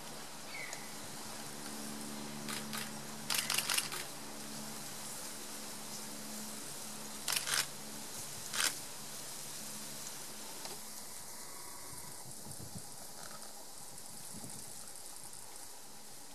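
Camera handling noise: a few clusters of short sharp clicks and knocks over a steady outdoor background hiss.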